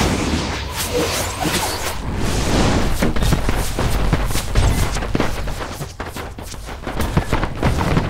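Designed magic-duel sound effects: a rapid volley of sharp crackling spell impacts over a continuous deep rumble.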